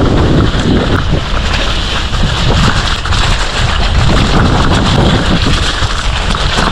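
Loud, continuous wind buffeting on the microphone, with a heavy, uneven low rumble and no break.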